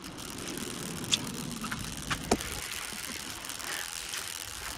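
Steady outdoor background noise with a low hum, broken by two sharp clicks a little over a second apart.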